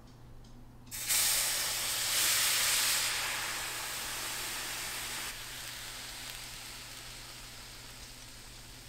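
Blended fresh tomato salsa poured into a hot skillet, hitting the pan with a sudden loud sizzle about a second in. The sizzle eases, drops lower about five seconds in, and fades slowly as the salsa starts to cook.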